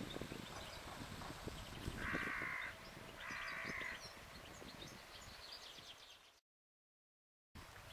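Two harsh, caw-like bird calls, each just under a second long and about half a second apart, over faint high chirps and scattered low knocks. The sound cuts out completely for about a second near the end.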